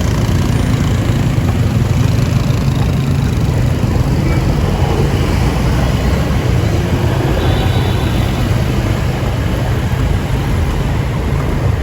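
Motorcycle engine running while riding, with wind rushing over the microphone as a steady low rumble.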